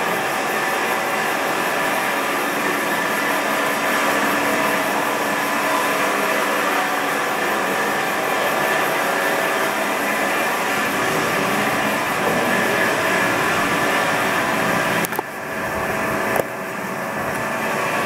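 Haas TL-2 CNC lathe running with its spindle turning: a steady machine whir with several held tones. Near the end the sound dips briefly twice and then goes on with less of its high edge.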